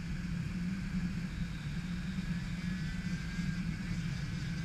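A steady motor hum, low and even, with a faint high whine above it.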